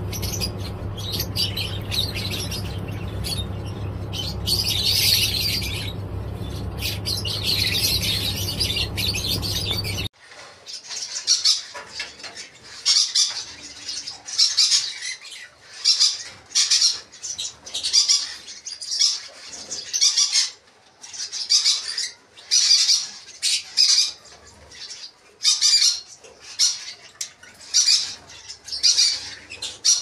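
Caged lovebirds calling. For the first ten seconds there are softer high chirps over a steady low hum. Then the hum stops abruptly, and shrill, loud calls follow about once a second.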